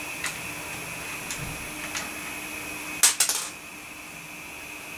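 Bare computer parts running on a bench, including a spun-up hard drive and power supply: a steady high whine over a low hum and hiss. There are a few light clicks, then a quick cluster of sharp clicks about three seconds in, after which the hiss drops slightly.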